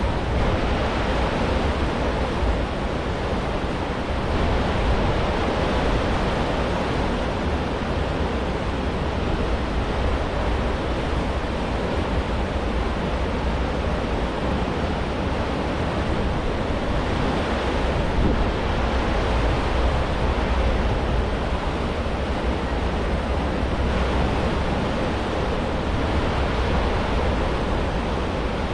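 A large cruise ship's aft wake churning and rushing in a steady hiss of foaming water. Under it runs a constant low rumble, with wind on the microphone.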